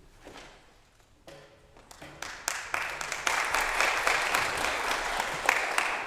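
Audience applauding: scattered claps begin about two seconds in and swell into steady clapping.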